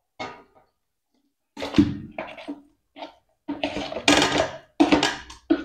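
Plastic tub of softened cream scraped and knocked against a stainless-steel bucket as the cream is emptied into it: a run of short scrapes and bumps.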